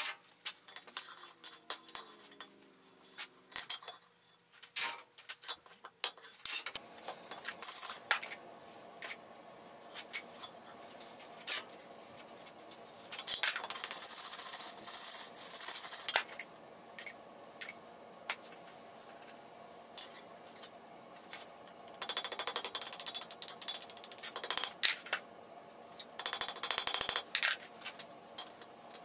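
Hand hammer striking white-hot steel on an anvil during a forge weld, with scattered clinks of tongs and steel at first, then runs of rapid hammer blows in the middle and near the end. A steady low hum runs underneath from about six seconds in.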